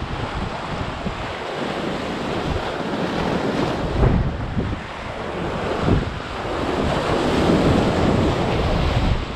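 Surf breaking and washing over the rocks of a rock jetty, in surges, loudest in the second half, with wind buffeting the microphone.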